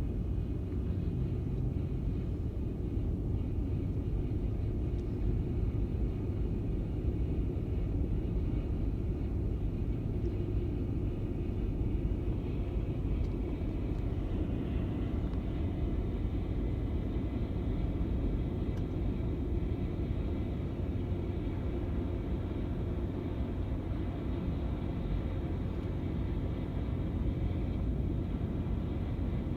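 Skid steer with a snowblower attachment running: a steady, unbroken engine rumble.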